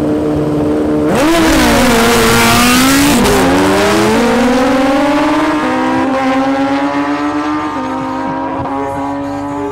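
Two Suzuki Hayabusa 1300 inline-four engines held at steady revs on the line, then launching about a second in. They rev hard, rising in pitch with sudden drops at each upshift, about three times, and fade as the bikes pull away down the strip.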